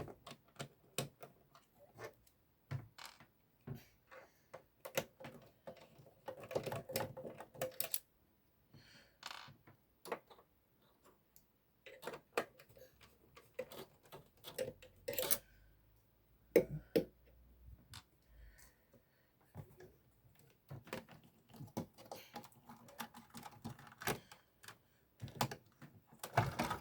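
Irregular clicks, taps and knocks of hands working on an original Xbox console's insides, handling its plastic and metal parts, drives and screws.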